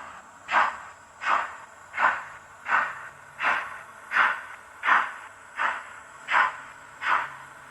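Steam-exhaust chuffing from the sound decoder of a Roco HO-scale DB class 01 steam locomotive model, played through its small onboard speaker. Even, steady chuffs come at about one every 0.7 seconds, as of a steam engine working at a slow, steady pace.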